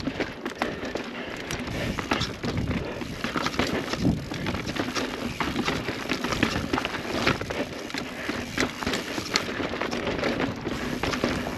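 Transition Spire mountain bike riding along a dirt trail: steady rush of tyre and wind noise with frequent clicks and rattles from the bike over rough ground.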